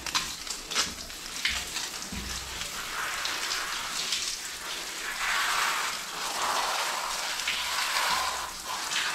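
Water from a handheld shower head spraying onto a Labrador's wet coat and the tiled floor: a steady hiss that gets louder about halfway through.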